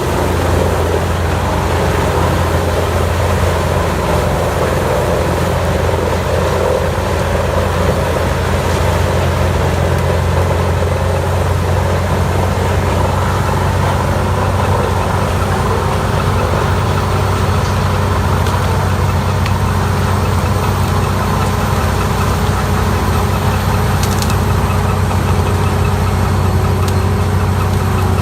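Heavy industrial wood grinder, a CBI 6800CT, running steadily with a deep, constant engine drone and no change in pitch.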